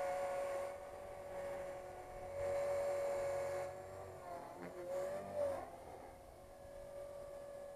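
Tarot 450 electric RC helicopter in flight, its motor and rotors giving a steady whine. The pitch wavers, dipping and rising, a little past the middle.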